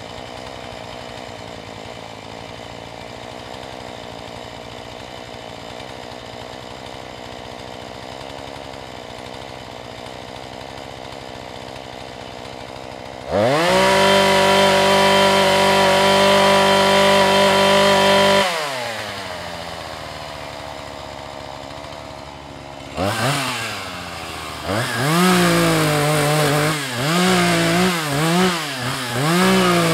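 Husqvarna 435 two-stroke chainsaw idling, then opened to full throttle about halfway through and held steady for about five seconds before dropping back to idle with a falling pitch. Near the end it is revved up and down in a quick string of short blips. Its low-jet carburettor screw is set a quarter turn to the left.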